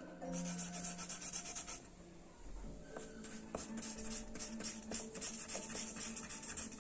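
Glitter marker pen scribbling on paper: a rapid run of soft scratchy strokes, pausing briefly about two seconds in.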